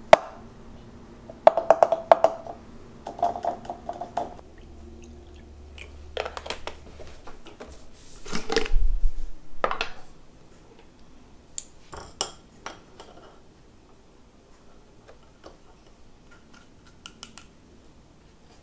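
Dishes and glassware clinking and clattering as they are handled on a kitchen counter, some taps leaving a short ring. About eight seconds in there is a louder noisy rush lasting about a second, and after that only a few light taps.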